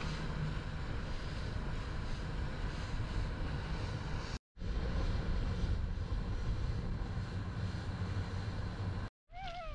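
Outboard motor of an inflatable dinghy running at speed, with water rushing and splashing along the hull. The sound drops out briefly about four and a half seconds in and picks up again. A cat starts meowing right at the end.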